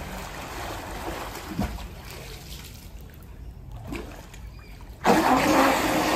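Pool water splashing and trickling, with a couple of small splashes; about five seconds in, a sudden, much louder churning of water with a steady hum as the home-built sea scooter's four brushless thrusters run at the surface.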